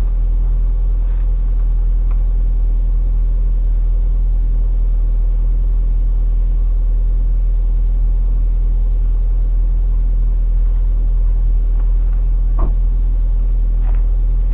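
Car engine idling steadily at the tailpipe, warming up after a cold start at −20 °C: a steady low hum, with one short click about twelve seconds in.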